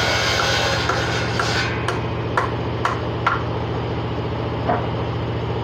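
A motor running steadily with a low hum in a woodworking shop. A hissing noise over it stops about two seconds in, followed by five sharp knocks spread over the next three seconds.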